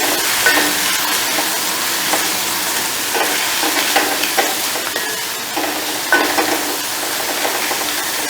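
Chopped spring onions frying in hot oil in a kadai: a steady sizzle, with irregular scrapes of stirring against the pan.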